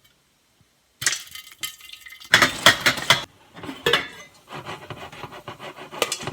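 Popcorn kernels popping in a lidded pot on the stove, a quick scatter of sharp pops, while the pot is shaken across the burner with a scraping, rattling sound. The first second is silent.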